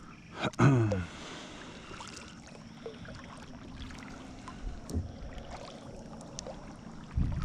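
Water lapping and small knocks against a kayak hull as it sits at anchor on calm shallow water. About half a second in there is one short, loud sound that falls in pitch.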